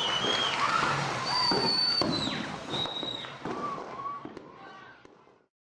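Fireworks crackling and popping, with a few high whistling tones. The sound fades away about five seconds in.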